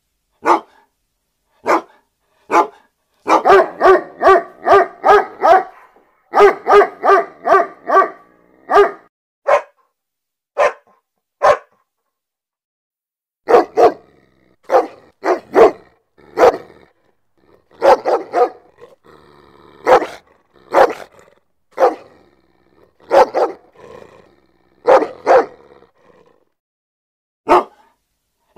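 Pit bull–type dog barking aggressively: loud, sharp single barks with short pauses, broken by two quick runs of rapid barks a few seconds in.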